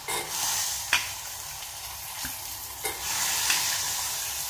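Freshly washed hyacinth beans sizzling as they go into hot oil and fried onions in a small steel pressure cooker, a steady hiss with a few sharp clinks of a steel spoon against the pot as they are stirred.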